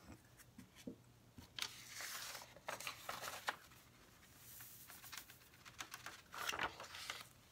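Soft, intermittent rustling as a bare hand brushes and pats loose glitter onto a glitter-coated tumbler lying on paper.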